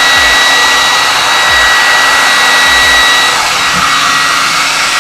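Hand-held blow dryer running steadily with a high-pitched whine over its rushing air, blowing on a water-damaged iPhone to dry out moisture inside. The whine drops away a little past three seconds in while the air noise carries on.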